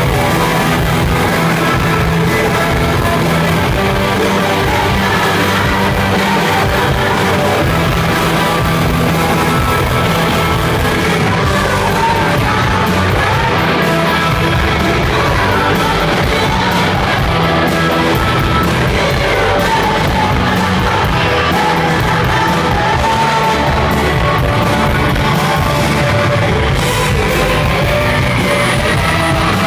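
Rock band playing live, loud and steady, with singing and shouted vocals over guitars and drums.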